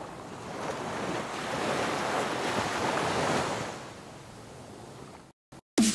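Ocean surf: a wave swells in, peaks and washes back out, fading about four seconds in. It cuts off shortly before music begins at the very end.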